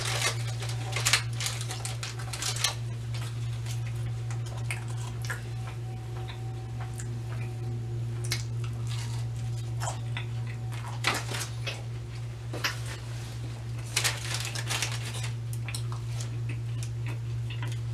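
Cardboard food box and its paper liner handled and rummaged through: scattered crinkles, rustles and small clicks, heaviest near the start and again about 11 and 14 seconds in. A steady low hum runs underneath.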